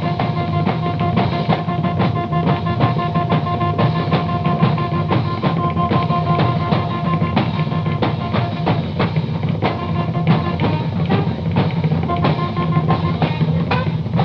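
Punk rock band playing an instrumental passage with no vocals: busy, dense drumming over a thick low rumble, with two held high notes that drop out about halfway and come back briefly near the end.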